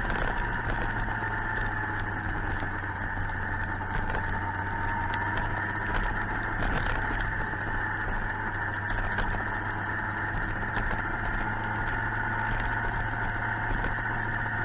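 Suzuki GSX-R 1000's inline-four engine running at a steady pace with a constant hum, under a scatter of small irregular ticks.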